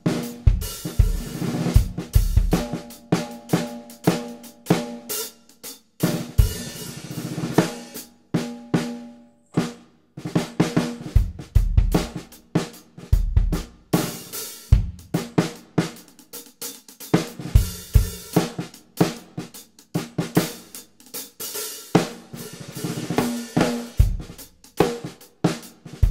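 Drum kit groove with kick, hi-hat and cymbals around a metal 6.5×14-inch snare. The snare wires are tightened and taped underneath and the head is tuned high, so the snare gives a dry, short, tight hip-hop/funk crack with a little ring that adds tone. After a brief pause partway through, the groove resumes with the snare's jingles on, adding a jingle to the snare hits.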